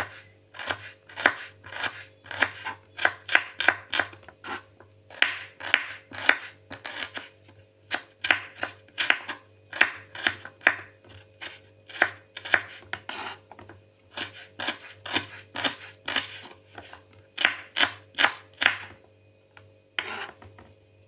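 Kitchen knife slicing shallots on a wooden cutting board: sharp knife strikes on the board in quick runs of several a second, with short pauses between runs and a brief stop near the end.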